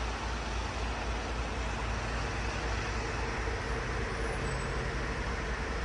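Hino Dutro truck's diesel engine idling steadily: a constant low rumble under an even hiss, with the cab air conditioning running cold enough to fog the outside of the glass.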